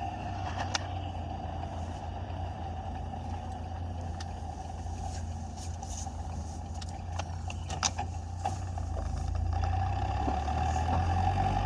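UAZ Patriot engine running steadily, getting a little louder near the end, with a few short knocks over it. The knocks match the one the driver hears when pressing the clutch pedal, which he places around the transfer case.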